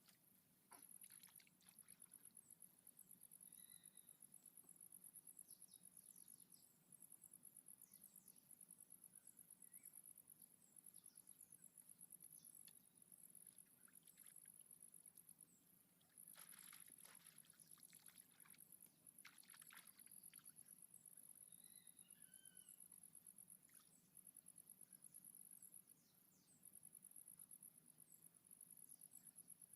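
Faint, high-pitched insect trilling, crickets, pulsing rapidly with a few brief pauses. A few faint clicks come around the middle, and short bird chirps sound a few seconds later.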